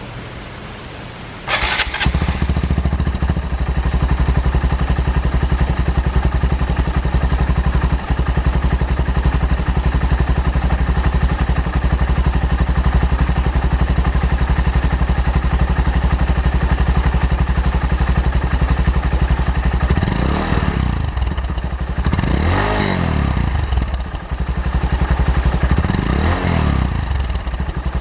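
Honda Monkey 125's single-cylinder four-stroke engine, fitted with a Takegawa P-shooter aftermarket exhaust, catching about a second and a half in and then idling steadily. In the last several seconds the throttle is blipped about every two seconds, the revs rising and falling each time.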